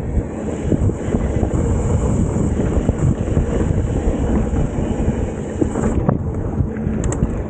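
Wind buffeting the microphone over the rumble and rattle of a mountain bike riding fast along a dirt singletrack, with small knocks from bumps in the trail. A high hiss cuts out about six seconds in.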